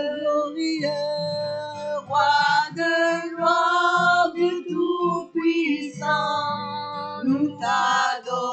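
A live worship song: women singing over a strummed acoustic guitar.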